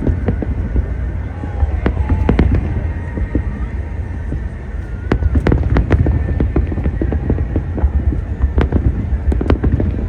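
Fireworks display going off: a rapid, irregular series of loud bangs and crackles over a continuous deep rumble.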